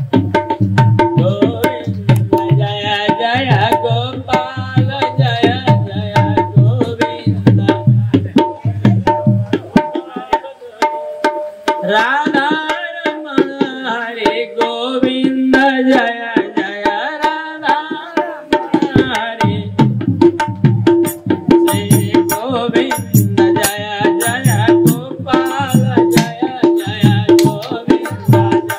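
Devotional chant with tabla keeping a steady beat under a sung melody. About a third of the way in the tabla drops out for several seconds and the voice carries on alone, then the drumming comes back.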